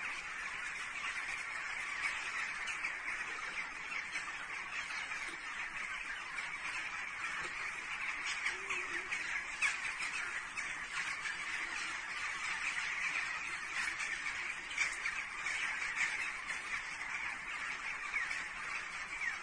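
A large flock of birds calling all at once, a dense, unbroken clamour of many overlapping short calls.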